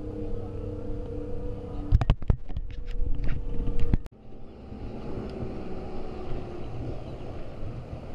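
A boat's motor drones steadily, with a cluster of sharp handling knocks about two seconds in. The sound cuts off abruptly about four seconds in, and wind and water washing on the rocks follow.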